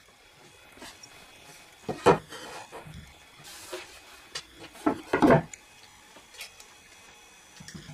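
Wooden boards being handled and set down on a wooden workbench: a few knocks and clattering, loudest about two seconds in and again about five seconds in, with light handling noise between.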